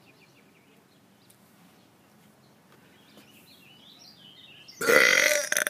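A man's single loud burp near the end, lasting under a second.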